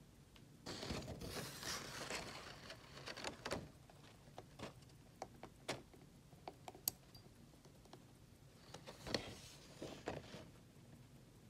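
Soft rustling of fingers handling a 1950s Gallet chronograph, with a scatter of sharp small clicks as the pushers of its Landeron 149 chronograph movement are pressed to start the chronograph hand.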